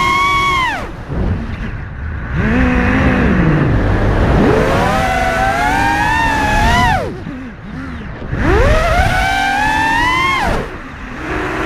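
FPV quadcopter's brushless motors and propellers whining, the pitch rising and falling with the throttle. The whine drops away sharply three times, about a second in, around seven seconds and near the end, as the motors spool down, then surges back up.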